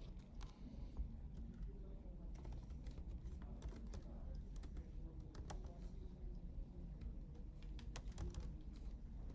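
Typing on a computer keyboard: irregular, scattered key clicks with short pauses between them, over a low steady hum.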